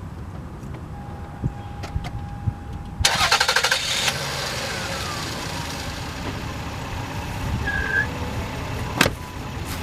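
A car engine is started: the starter cranks briefly for about a second, about three seconds in, then the engine catches and idles steadily. A sharp click near the end.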